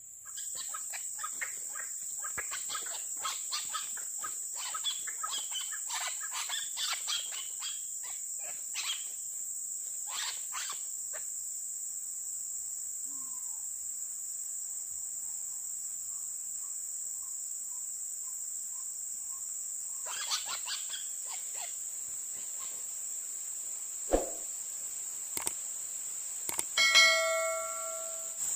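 Steady high-pitched insect drone. Crackling rustles run through the first ten seconds, there is a thump about 24 seconds in, and near the end a click and a short bell-like chime from a subscribe-button animation.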